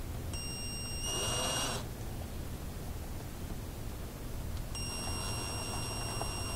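Cordless drill turned slowly as a coil winder, winding fine copper wire onto a radio IF coil: a steady high-pitched whine that starts about half a second in and stops near two seconds, with a brief rush of motor noise just before it stops, then the whine again from about five seconds in with a few light clicks.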